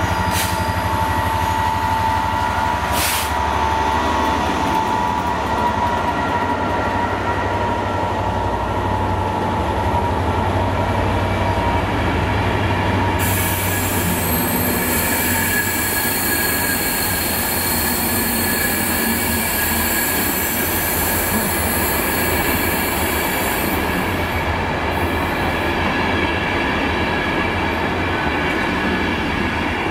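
Transport for Wales Class 67 diesel locomotive and its loco-hauled coaches rolling slowly past. The engine's deep rumble stands out for the first few seconds, then the steady rolling of wheels on rail as the coaches go by, with a high hiss for about ten seconds midway.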